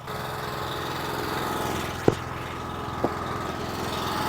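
Small gasoline engine of a firewood log splitter running steadily, with two sharp knocks about a second apart in the middle.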